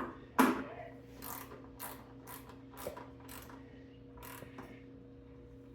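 Hand ratchet with a 4 mm bit clicking in short back-and-forth strokes, about two a second, as a bolt with a washer is tightened down.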